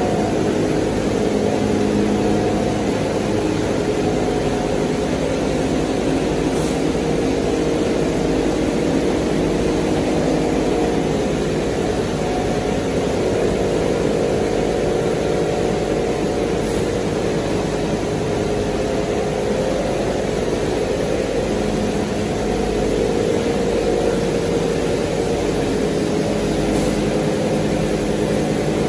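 QD-600SA copper wire granulator and separator line running while processing scrap wire: a steady machine drone with a hum of several steady tones.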